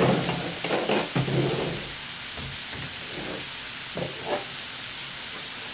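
Seafood and meat sizzling steadily on the griddle plate of an electric grill-and-hotpot combo, with a few brief knocks in the first second or so.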